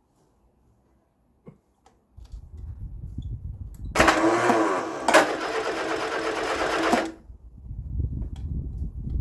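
1975 Vauxhall Viva HC being cranked on its starter motor in a start attempt. A single click comes about a second and a half in. Uneven cranking starts about two seconds in, is loudest from about four to seven seconds, then drops back to a rougher, lower rumble.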